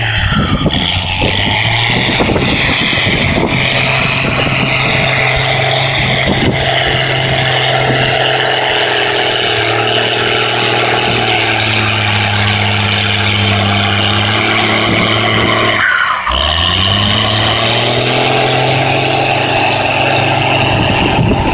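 Turbocharged diesel engine of a wheel loader running hard with a steady drone and a high whine over it, its turbo boost pressure turned up. About sixteen seconds in it dips for a moment and its pitch climbs back up.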